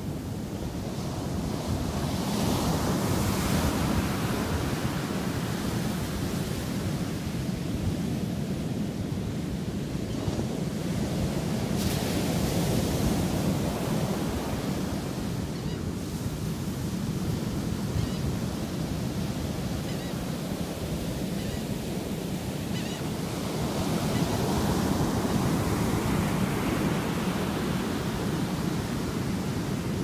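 Ocean surf breaking and washing up the sand: a continuous rush that swells with each set of waves, about every ten seconds.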